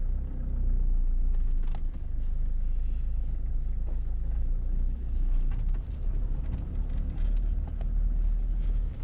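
Mitsubishi Montero 4x4 driving along, a steady low engine and road rumble with the odd light knock.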